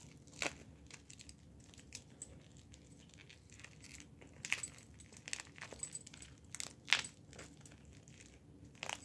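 Clear plastic protective film crinkling and crackling as it is picked and peeled off a watch's metal link bracelet, with light clicks of the links shifting in the hand. Soft and intermittent, with the sharpest crackle about seven seconds in.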